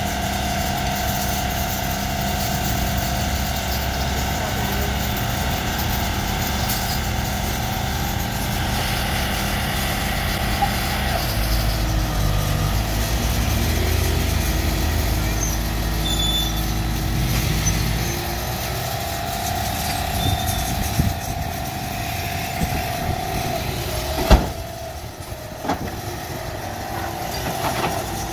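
Mini excavator's diesel engine running steadily, working harder with a heavier low note for several seconds in the middle. A single sharp knock comes a few seconds before the end.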